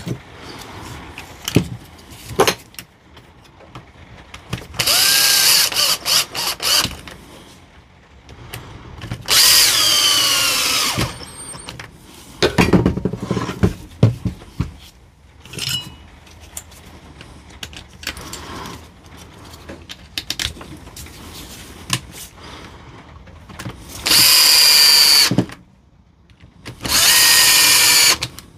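Cordless drill-driver running in about five short bursts of a second or two, driving the Torx screws back into the housing of a DeWalt DCF899 impact wrench, its pitch sagging in places as a screw tightens. Between bursts come clicks and knocks as the tool and screws are handled.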